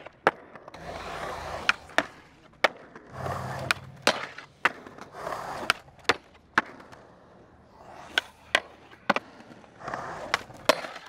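Skateboard on concrete: wheels rolling and the board sliding along the edge of a concrete barrier, with many sharp clacks from pops and landings.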